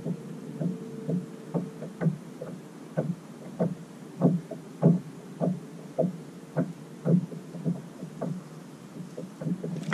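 Baitcasting reel being cranked at a steady pace to retrieve a crankbait, giving a soft, even knock about twice a second.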